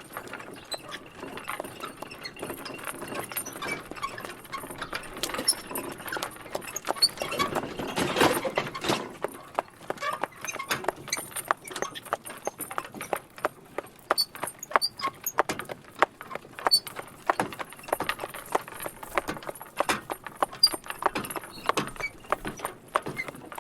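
Horse hooves clip-clopping, a long run of sharp, irregular hoofbeats, with a louder stretch of noise about eight seconds in.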